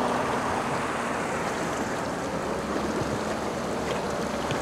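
Steady wind on the microphone over water lapping against the side of an inflatable dinghy.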